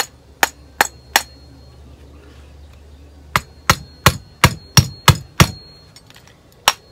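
Small ball-peen hammer tapping a new plug into a vintage Johnson outboard carburetor body: sharp metal-on-metal taps with a faint ring. Four taps, a pause of about two seconds, then about seven quicker taps, roughly three a second, seating the plug.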